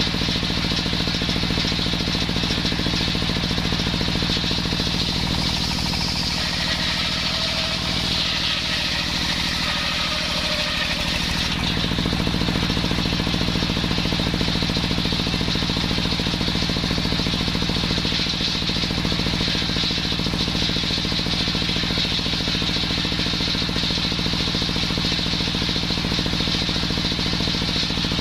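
Engine-driven homemade circular saw running steadily. For about six seconds in the middle, the engine note sinks and a higher hiss rises as the blade cuts through waru timber, then the engine's note comes back.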